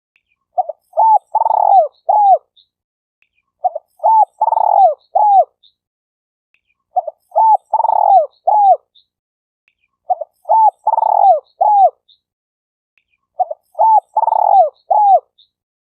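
Spotted dove (tekukur) cooing. The same four-note phrase repeats five times, about every three seconds: a short note, then rising-and-falling hooked coos with a longer one in the middle.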